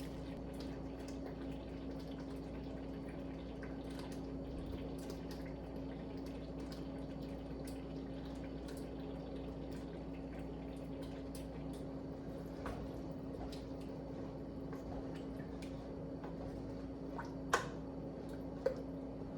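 A spoon breaking up Velveeta and stirring it into a warm cream sauce in a pot: scattered small clicks of the utensil on the pot with soft wet squishing, over a steady low hum. There are two sharper clicks near the end.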